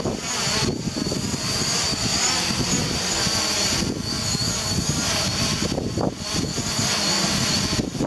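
DJI Mavic Pro quadcopter's propellers whining, the pitch wavering as the motors keep adjusting against strong gusts, over a gusty wind rumble on the microphone.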